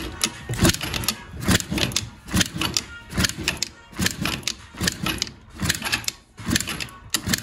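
Yamaha Aerox scooter's two-stroke engine being kicked over again and again on its kickstarter, with a compression gauge in place of the spark plug. It makes a rhythmic clatter a little faster than once a second while the engine turns over without firing. This is a compression test, and the gauge builds to about 100–110 PSI, a healthy reading for the stock cylinder.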